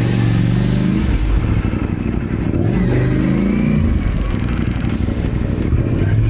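KTM adventure motorcycle engine running while riding in slow traffic, its pitch rising and falling as the throttle is opened and eased off.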